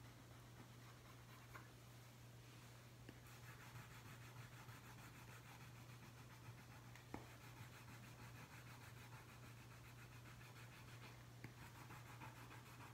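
Wax crayon coloring on paper on an easel, faint back-and-forth strokes that start about three seconds in and go on with a short break near the end. A steady low hum runs underneath.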